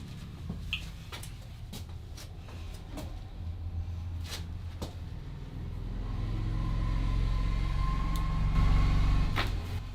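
Scattered sharp cracks and pops from a barber's head massage with joint cracking, a second or more apart. A low rumble with a faint steady hum swells from about six seconds in, becomes the loudest sound, and stops abruptly near the end.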